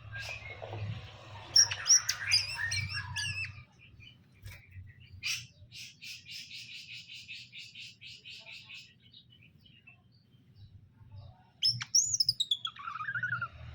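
Cucak ijo (green leafbird) song: a burst of warbled, twisting phrases in the first few seconds, a fast even trill about halfway, and quick whistled notes falling in pitch near the end.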